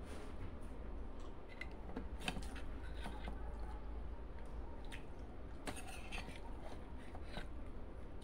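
Eating sounds: fingers squishing and mixing rice with curry on a steel plate, with several sharp clicks of a steel serving spoon against the steel bowl, over a low steady hum.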